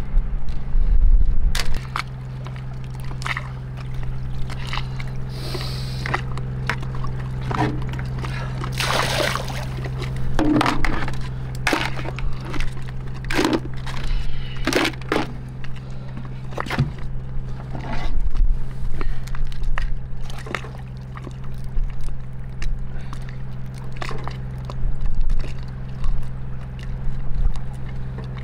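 Dungeness crabs being cleaned by hand: an irregular run of sharp cracks and snaps as the shells are broken apart, with a few wet splashing sounds. A steady low hum runs underneath.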